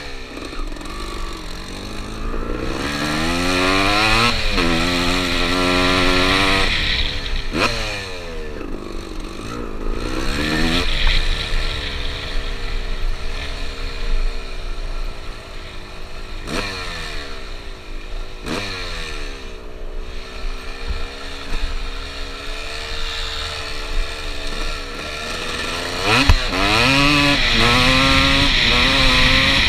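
1996 Suzuki RM250 single-cylinder two-stroke dirt bike engine under way, its pitch climbing and dropping back repeatedly as the rider accelerates, shifts and rolls off the throttle, with the hardest acceleration near the end.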